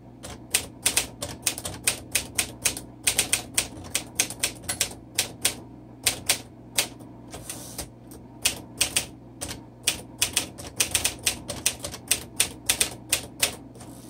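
Typebars of a 1951 Smith Corona Silent manual typewriter striking the platen in a fast, uneven run of clacks, about five a second. Partway through, the typing stops briefly while the carriage is pushed back with the return lever, then resumes.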